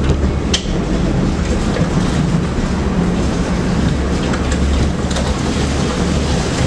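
Tram running along the track: a steady low rumble and rattle of the car on the rails, with a few short clicks and a brief squeak from the wheels.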